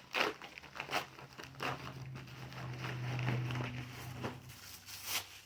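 Plastic packaging crinkling and rustling as it is handled, with several sharp crackles. A low steady hum runs under it and stops near the end.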